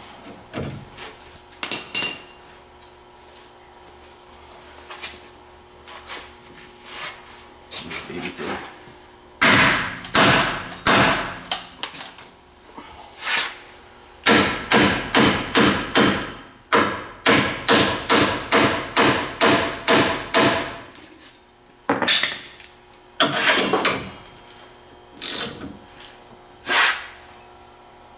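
Hammer blows on steel tooling while a new ball joint is driven into the steering knuckle. A few separate strikes come first, then a fast run of about two blows a second for several seconds, then a few more near the end.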